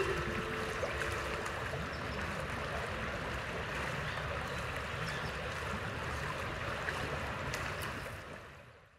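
Shallow stream running and rippling in a steady wash. The last held notes of a kanklės die away in the first second, and the water fades out near the end.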